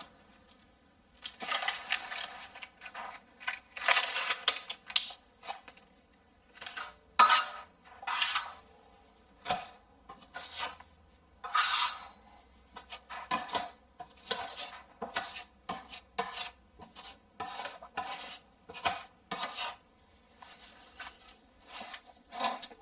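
Metal hand tool scraping and clinking against a hard surface in short irregular strokes, often several close together, typical of working with a putty knife during drywall patching.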